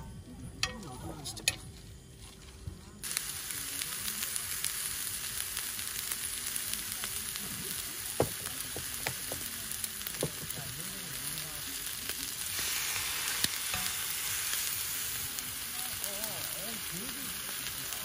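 Thick bone-in pork chops (pork tomahawk) sizzling on a hot round griddle pan. The sizzle starts suddenly about three seconds in, after a few clicks and taps as the meat is laid on, and grows a little louder past the middle.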